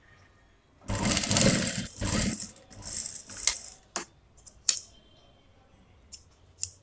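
About a second in, a loud stretch of rustling and handling noise as the sewn cloth mask is drawn out from under the sewing machine's presser foot, then several sharp, separate clicks of scissors snipping the threads.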